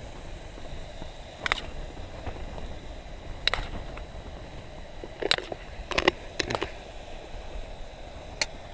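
A metal spoon clinking and scraping against a metal bowl while pork and onion are mixed: sharp clinks every second or two, some coming in quick pairs, over a steady low rush.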